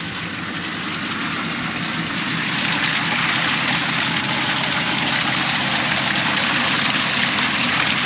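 Water pouring from a white PVC pipe off a 300-gallon tote into a plastic stock tank, a steady splashing gush that gets louder over the first few seconds as the flow builds. A steady low engine hum runs underneath.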